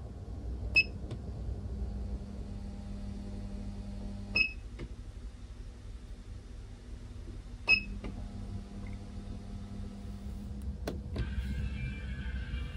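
Three short electronic beeps from a hotel room's bedside control panel as buttons are pressed, a few seconds apart, over a steady low hum. A low drone comes on and goes off with the button presses. Near the end, background music starts playing.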